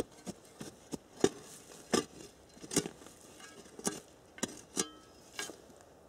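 A shovel chopping and scraping into forest soil while digging out a detector find: about ten sharp strikes at uneven intervals, a few with a brief metallic ring.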